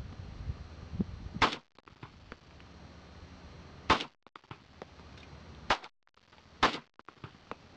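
Handgun shots at an outdoor range: four loud cracks at uneven spacing, the last two close together. Each is followed by a brief dropout in the sound.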